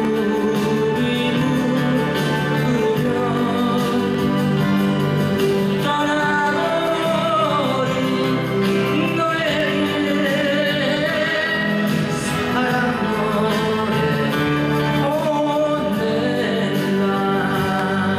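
Live concert music: a song sung over acoustic guitar, with steady held chords underneath.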